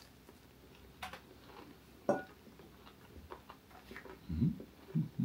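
Quiet handling sounds as a hot-sauce bottle and tableware are used to pour sauce: two sharp taps about one and two seconds in, then a couple of low, soft knocks near the end.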